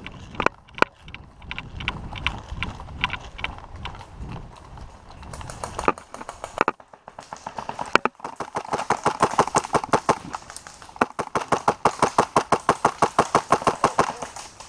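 Airsoft guns firing: scattered single shots in the first half, then two long, rapid full-automatic bursts in the second half.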